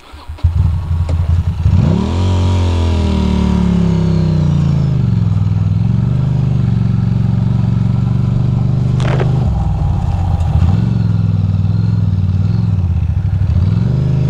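2006 Ducati Monster 620's air-cooled L-twin engine starting up, revving with a rising pitch, then running on under changing throttle as the bike rides over gravel. A brief sharp noise cuts through about nine seconds in.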